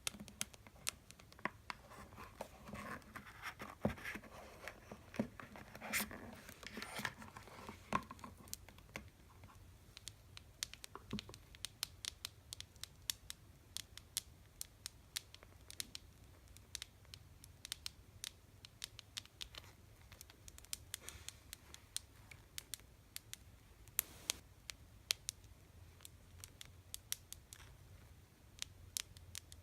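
Tapping on candy boxes: many quick, irregular sharp taps, with a stretch of scratching and rubbing on the boxes between about two and eight seconds in.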